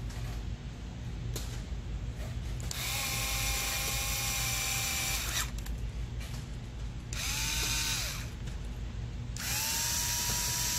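Cordless electric screwdriver driving small screws into a Traxxas nitro engine, its motor whining in three separate bursts, each with a short rising spin-up: a long one about 3 s in, a short one about 7 s in, and another starting near the end.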